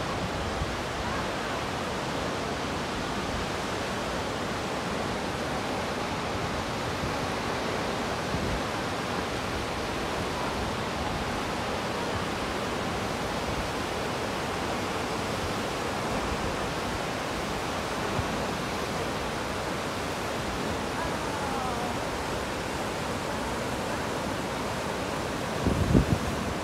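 Steady rush of Takakkaw Falls, a tall waterfall, and the torrent below it. Wind buffets the microphone in short gusts near the end.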